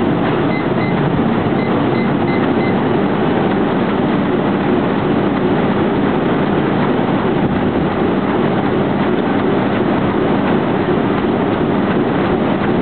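Sprinting on a treadmill: a steady, loud rumble of the running belt and rapid footfalls at maximum effort. A run of short high beeps sounds in the first few seconds.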